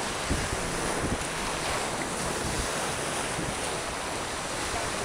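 Wind buffeting the microphone over a steady rush of beach surf: a constant hiss with irregular low rumbles from the gusts.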